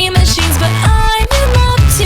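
Electronic pop music with a heavy bass and synth lines, no vocals in these seconds.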